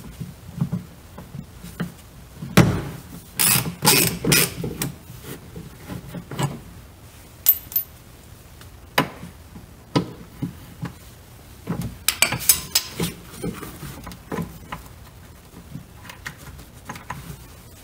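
Irregular metallic clicks and clinks of a ratchet on a long socket extension loosening the 16 mm upper shock-mount bolts, with scattered taps and knocks of metal tools and parts.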